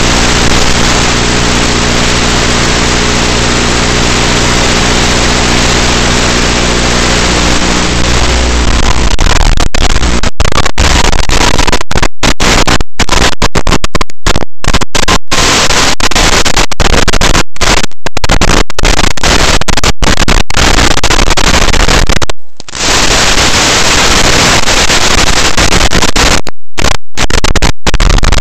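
Loud steady hiss of radio static, with a steady hum of several pitched tones through the first third. From about ten seconds in, the hiss keeps cutting out in many brief dropouts, as a weak analog wireless video link's audio does.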